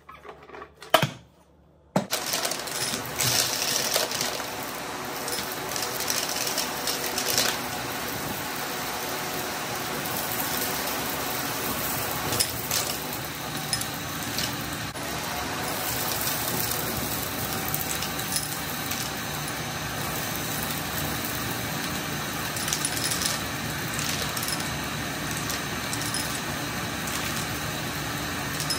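Vacuum cleaner running over carpet, sucking up confetti that crackles and rattles through it in scattered sharp ticks. A sharp click comes about a second in, and the vacuum sound starts abruptly about two seconds in.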